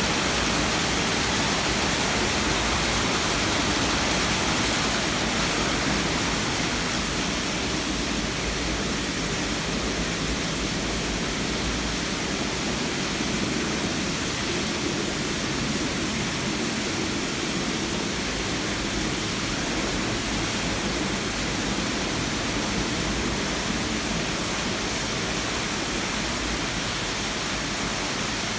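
Steady rush of pouring, splashing water from a swimming-pool water feature, going on without a break.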